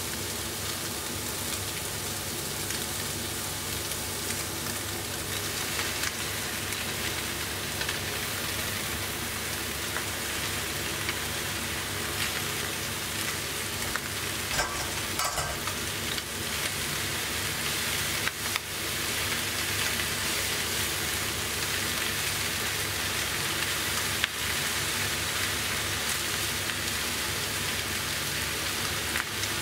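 Food sizzling steadily in a hot pan as it is stir-fried, with a few sharp knocks about halfway through and again later.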